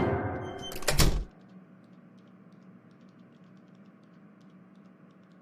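A loud noisy sound dies away over the first second and ends with a second short burst at about 1.3 s. After it comes a faint steady hum with scattered soft clicks.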